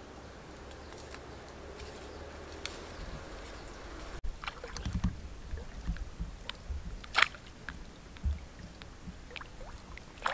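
Water sloshing and splashing as a person wades slowly through waist-deep muddy river water, in uneven strokes with a sharper splash about seven seconds in. Before that, a steady outdoor background hiss.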